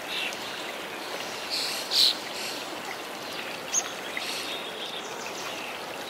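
Shallow water running and trickling steadily over wet rock at a small cascade. A few short bird calls sound over it; the loudest is a brief call about two seconds in.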